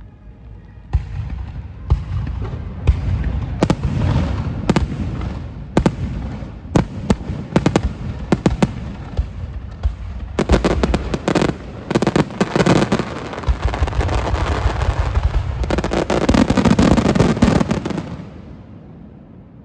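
Aerial fireworks display bursting: a run of separate sharp booms, then two dense flurries of rapid bangs and crackle, the second one the loudest, after which the sound dies away with a fading echo.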